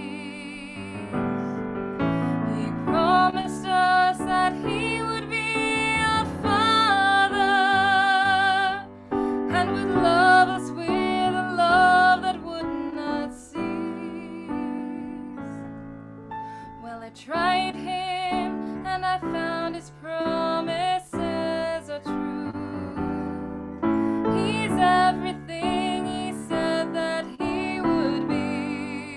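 Slow piano music with a solo melody of long notes held with vibrato over the chords.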